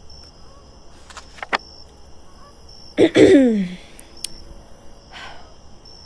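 Steady cricket chirring in the background. About three seconds in comes a short, loud vocal sound that starts sharply and falls in pitch, and there are a few soft clicks.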